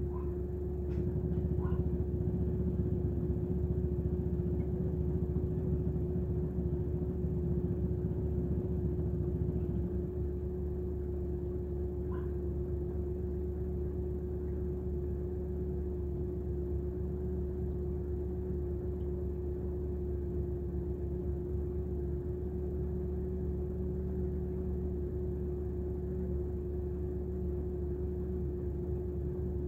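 An engine idling with a steady low hum and a constant whine, a little louder for the first ten seconds or so.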